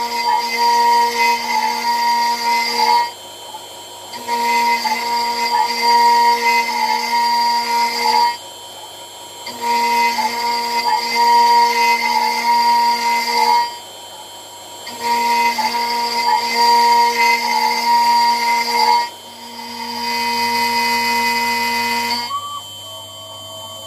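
CNC router spindle milling aluminium: a steady high-pitched cutting whine in passes of about four seconds, each followed by a lull of about a second. Near the end the sound changes to a quieter whine that rises and falls in pitch.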